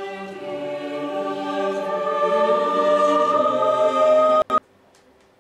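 Music: a held, choir-like chord that swells steadily louder, then cuts off suddenly about four and a half seconds in.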